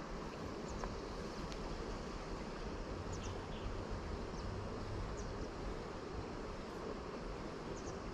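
Steady rush of flowing river water, with a few faint, short high ticks scattered through it.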